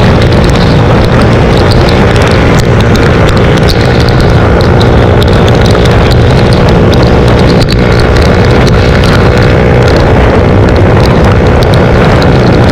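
Suzuki GSX-R125's single-cylinder four-stroke engine running at a steady, unchanging pitch while the motorcycle is ridden, under heavy wind noise on the microphone.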